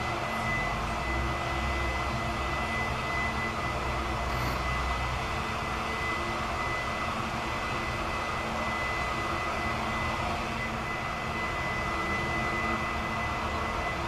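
Steady background rumble of distant engine noise, with a thin steady high whine over it.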